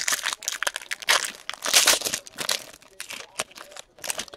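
Foil trading-card pack wrapper crinkling and tearing as it is ripped open by hand, an irregular run of crackles, loudest a little under two seconds in.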